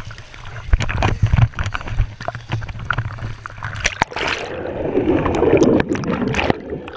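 Pool water splashing and sloshing around a GoPro camera at the surface, then the camera dips underwater about four seconds in and the sound turns muffled: a dense bubbling rush of water heard through the camera's waterproof housing.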